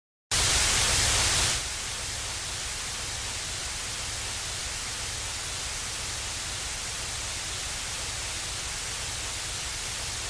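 Silence, then a sudden loud burst of static hiss for about a second, settling into a steady, quieter tape hiss with a low rumble underneath: the noise of degraded analog video footage.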